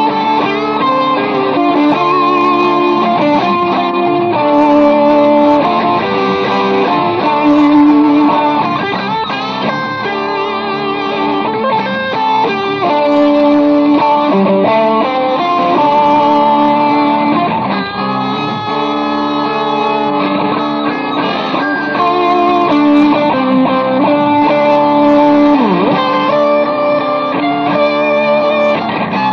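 Electric guitar playing a hard rock instrumental with shifting melodic notes. Near the end there is one deep downward swoop in pitch that comes back up.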